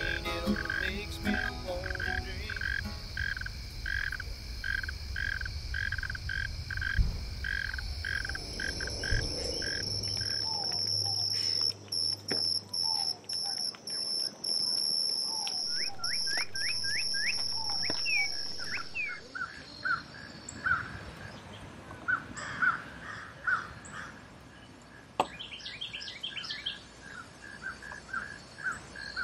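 Frogs calling in a pulsing chorus of about two pulses a second, over a steady insect drone and a low rumble with one thump about seven seconds in. From about ten seconds in, birds chirp and call, and the frog chorus fades behind scattered birdsong.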